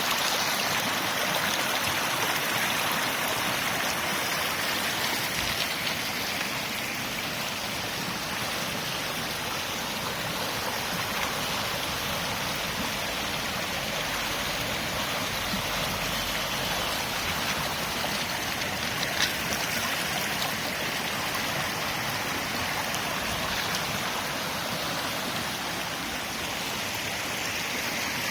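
A river flowing: a steady, even rush of water with no lulls, with a single faint click about two-thirds of the way in.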